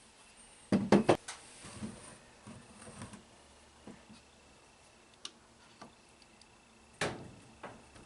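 Hard parts clacking together as a disassembled throttle body is handled on a bench. A quick run of sharp clacks comes about a second in, then a few lighter clicks, then another sharp knock near the end.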